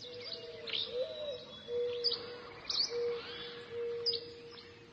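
Birds chirping: short, sharp high notes repeated every second or so, over a lower held note that comes and goes.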